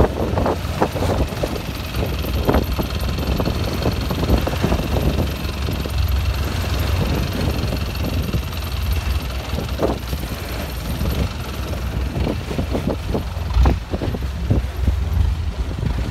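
Thai long-tail boat engine running steadily, heard from on board, with a deep low drone and a faint high whine.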